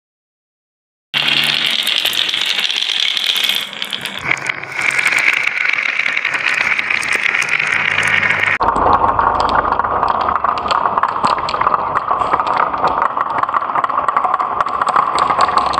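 Glass marbles rolling and clacking down a wavy wooden marble-run track, a dense rattle of clicks over a steady rolling hum. It starts about a second in and changes abruptly to a lower-pitched roll about two-thirds of the way through.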